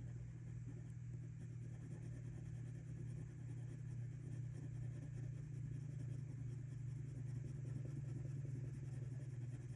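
Derwent Lightfast coloured pencil rubbing across paper in short repeated shading strokes, a soft scratching that grows a little stronger in the second half, over a steady low hum that is the loudest sound.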